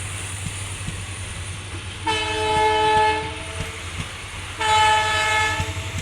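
Horn of a WDG-4 diesel freight locomotive of Indian Railways, sounded in two blasts: one of about a second and a half, then after a short gap one of about a second. Several notes sound together, over the steady low rumble of the locomotive.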